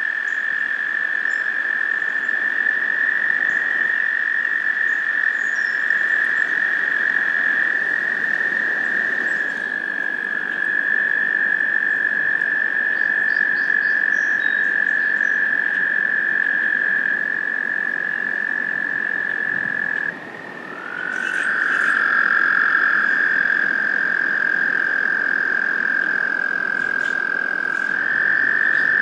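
Several American toads trilling: long, steady, high-pitched trills that overlap at slightly different pitches, with a brief break about two-thirds of the way through before a new trill starts.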